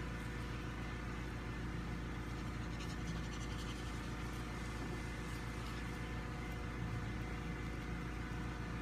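A steady machine hum made of several constant tones, with a faint scratchy rustle about three seconds in.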